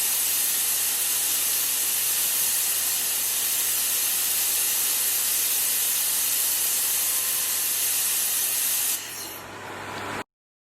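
Steady hissing of a handheld fiber laser welder welding a small stainless steel pipe, over a low steady hum. The hiss drops away about nine seconds in, and the sound cuts off a second later.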